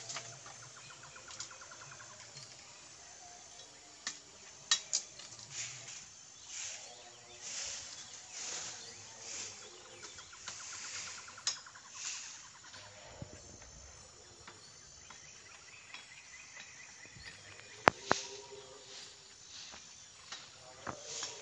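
Bamboo being cut and pulled down: a few scattered sharp cracks, the loudest near the end, with swells of rustling bamboo leaves in between.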